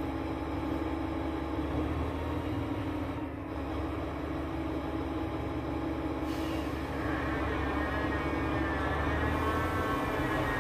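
ÖBB class 2070 diesel-hydraulic locomotive's diesel engine running steadily with a low drone. From about seven seconds in, a wavering high whine joins it.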